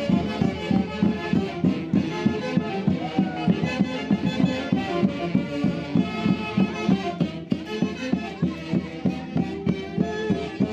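Andean folk music for the Santiago festival, played by a típica orchestra: sustained melody lines over a steady, pulsing beat.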